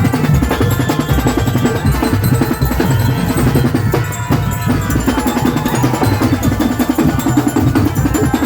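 Loud music driven by a dense, steady drum beat with heavy bass.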